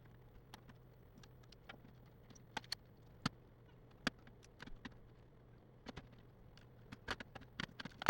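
Irregular light clicks and taps of hands and small tools on a laptop's plastic and metal parts as it is taken apart for repair, heaviest around three seconds in and near the end, over a faint steady low hum.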